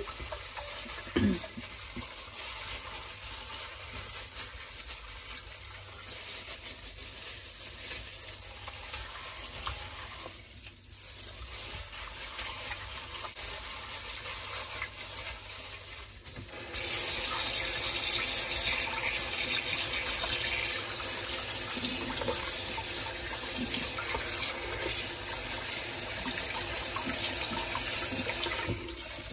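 Wet squishing as raw chicken is rubbed with olive oil between plastic-gloved hands in a glass bowl. About halfway through, the tap comes on and water runs steadily into the bowl and stainless-steel sink, rinsing the chicken.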